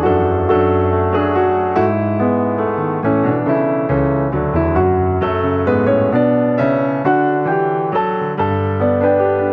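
Background piano music: a gentle, even run of notes at about two a second.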